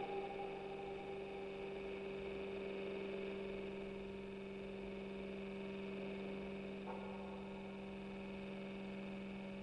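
Steady low electronic hum from amplified live-electronics equipment, with a second steady tone an octave above it; fainter higher tones join about seven seconds in.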